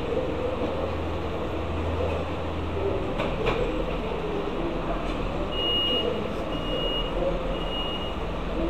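Steady low rumble and hum of a railway station passage as a mobility scooter drives through it from the train, with three short high-pitched beeps about a second apart in the second half.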